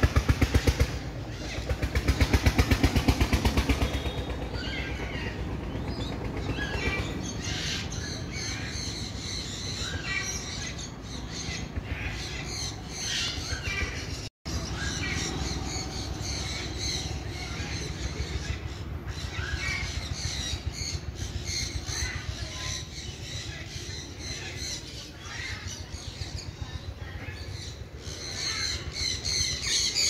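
Many birds squawking and calling over and over, short harsh calls following one another. For the first few seconds a loud low noise covers them.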